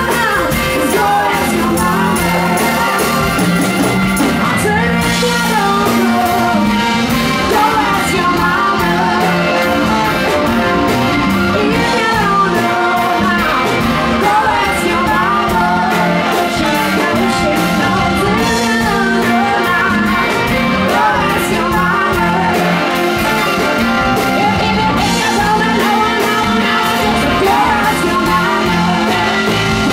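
Live band playing a loud rock-soul song with singing over it, continuous and even in level.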